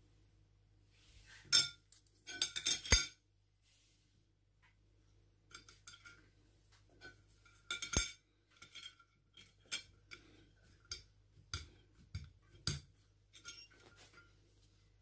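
Stainless steel shape cutters clinking against each other and the plate as they are picked up and set down. Sharp metallic clinks, the loudest about a second and a half, three and eight seconds in, with lighter taps and clicks between.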